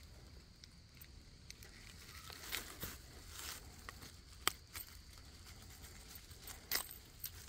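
Fishing pliers clicking and scraping on a metal spinner lure as it is worked out of a steelhead's mouth, with faint rustling; a handful of small sharp clicks, the loudest about halfway through.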